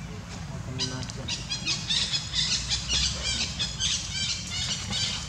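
Baby macaque squealing: a rapid run of short, high-pitched cries that starts about a second in and keeps on, over a steady low rumble.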